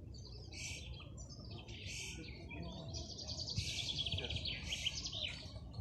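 Small birds chirping over and over, with a fast run of rapid chirps from about three seconds in.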